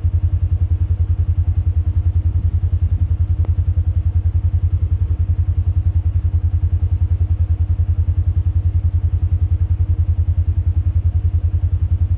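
An engine idling: a steady, loud low throb that pulses evenly several times a second.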